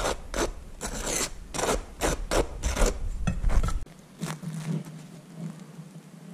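Table knife spreading butter on toast: a quick run of short rasping strokes of the blade across the dry, crusty surface. After about four seconds the scraping stops and it goes much quieter.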